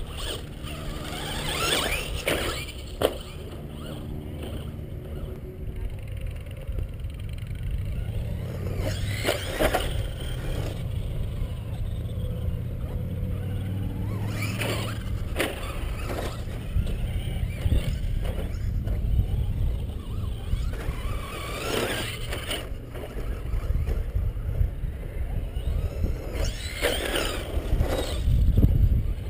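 Traxxas radio-controlled trucks driving laps past the camera: about five passes, each a high motor whine that swells and fades, over a steady low rumble.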